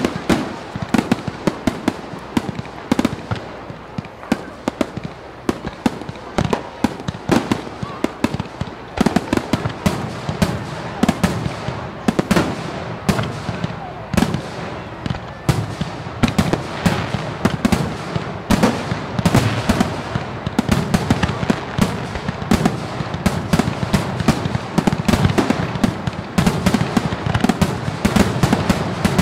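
Fireworks going off in quick, irregular succession: a dense run of sharp bangs and crackles, several a second.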